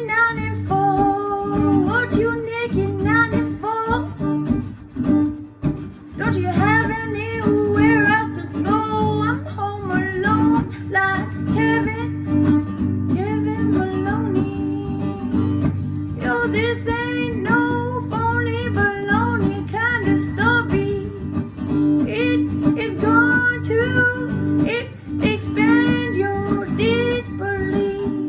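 Music: a strummed acoustic guitar with a voice singing over it.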